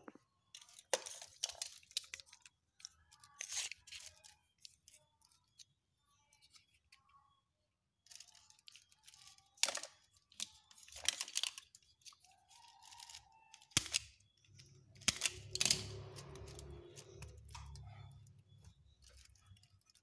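Fridge power-cable wires being cut, stripped and twisted with pliers: irregular snips, scrapes and handling rustles, several of them sharper and louder, with a few seconds of low rumble near the end.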